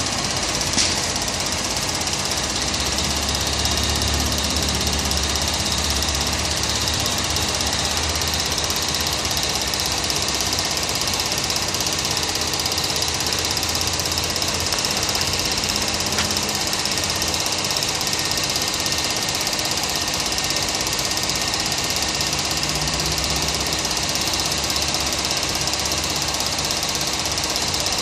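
Small pump motor on a diesel fuel-filter test rig running steadily, moving a coffee-and-water mix through the filter and hoses, with a light click about a second in.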